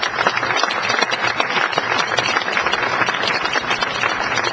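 Audience applauding: a steady, dense patter of many people clapping.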